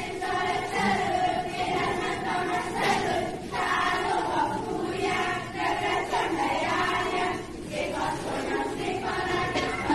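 A group of voices singing together in sustained phrases, like a choir.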